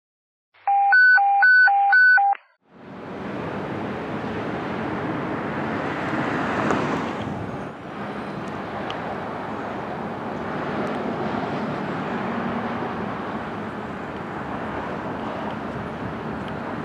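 Four quick electronic alert beeps, about half a second apart, then steady outdoor street noise that swells and fades about six to seven seconds in.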